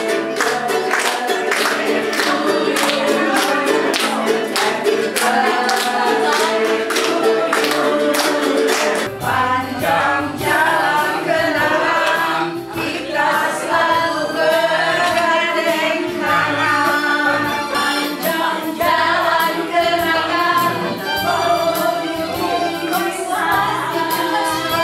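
A song sung by several voices together over a steady beat. A low bass line comes in about nine seconds in.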